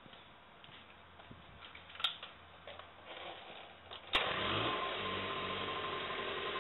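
Small minibike engine kick-started: a knock from the kick lever about two seconds in, then a second kick just after four seconds catches and the engine starts, its pitch rising briefly before it settles into a steady run.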